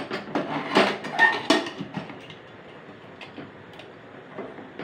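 Aluminium pressure cooker lid clattering against the cooker's rim as it is fitted inside and closed: four or five sharp metal knocks in the first second and a half, one with a short ring, then a few faint clicks as the handle is brought round.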